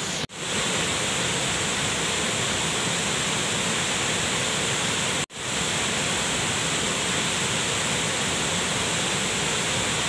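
Waterfall and white water pouring into a river pool: a loud, steady rush of water. It cuts out briefly twice, about a quarter second in and about five seconds in, and comes straight back.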